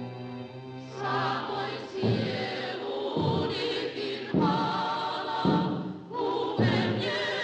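Film score with a choir singing. A held low note carries the first second or so, then the voices come in short, wavering phrases of about a second each.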